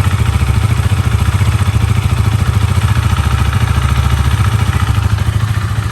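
Husqvarna Vitpilen 401's single-cylinder engine idling steadily through its stock muffler, with an even, rapid low exhaust pulse.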